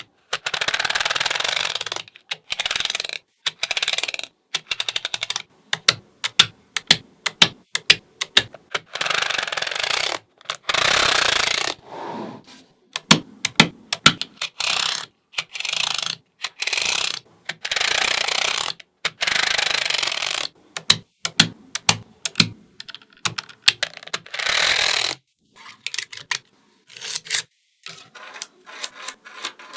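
Small neodymium magnetic balls clicking and snapping together, with stretches of dense rattling as many balls shift at once. The sound comes in short bursts separated by abrupt brief silences.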